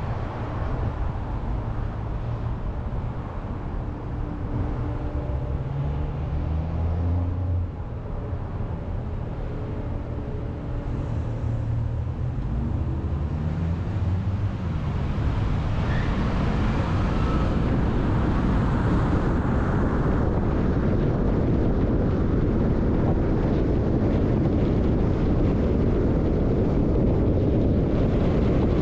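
Car driving on the road: a low engine hum whose pitch shifts over the first half. From about halfway through, a steady rush of tyre and wind noise grows louder and takes over.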